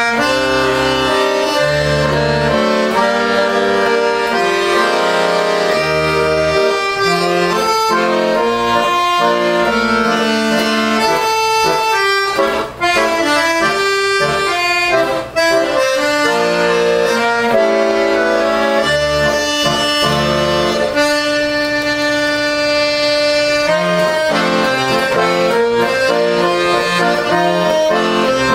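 Piano accordion played solo: a melody on the right-hand keyboard over bass notes and chords from the left-hand buttons, with two very brief breaks in the sound near the middle.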